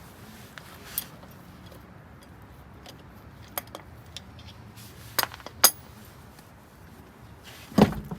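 Scattered sharp metal clinks and knocks, like tools being handled, against a quiet background. The loudest come as a pair about five seconds in and another near the end.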